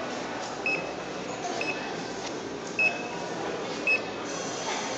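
Handheld barcode scanner beeping as red paper folders are scanned one at a time: four short, high beeps about a second apart, over the low murmur of the store.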